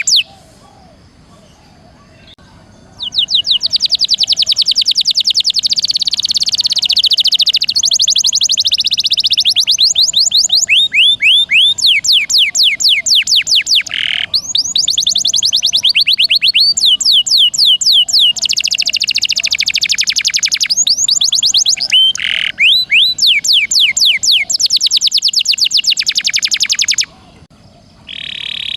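Domestic canary singing in fast rolling trills: long runs of rapidly repeated high sweeping notes, phrase after phrase with short breaks, starting about three seconds in.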